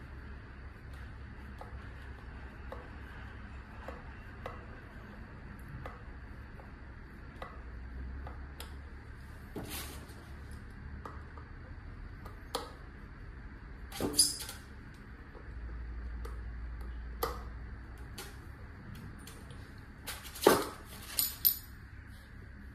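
Scattered metallic clicks and clinks of a hex key and small metal parts being worked on an e-bike hub motor, with a few louder clinks late on, over a steady low hum.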